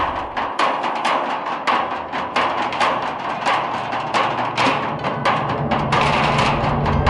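Percussion music of drumming on metal barrels with sticks: a fast, steady run of sharp strikes, with a deeper, fuller beat coming back near the end.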